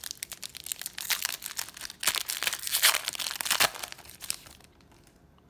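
Shiny foil wrapper of a trading-card pack being torn open and crinkled by hand, a dense crackling that is loudest around the middle and stops about a second before the end.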